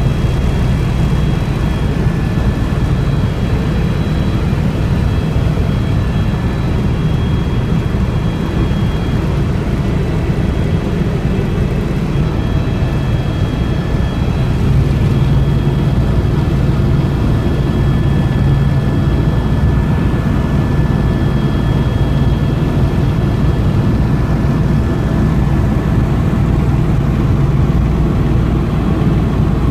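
Helicopter engine and rotor running steadily, heard from inside the cabin: a loud, even low drone with thin high whines that come and go above it.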